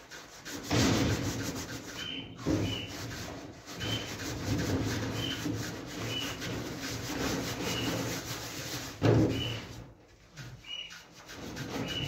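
Rapid back-and-forth scrubbing of greasy sheet metal inside a gas stove, rubbing to lift off built-up grease, with heavier scrapes now and then and a short pause near the end.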